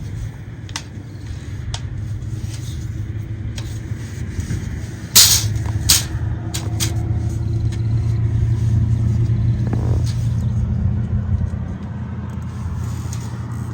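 Steady low rumble like a vehicle running, with scattered light clicks and two sharp knocks about five and six seconds in.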